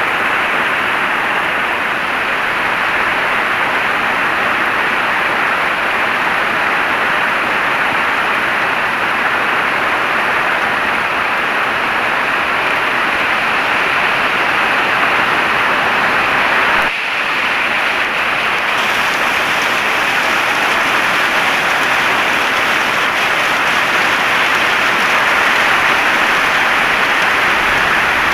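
Heavy rain falling steadily: a dense, even hiss, with a brief dip in level about two-thirds of the way through.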